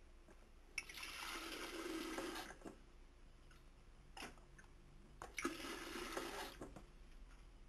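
Water running from a kitchen mixer tap into a stainless-steel electric kettle as it is filled, in two spells of about two seconds and a second and a half, with a short clunk of the kettle between them.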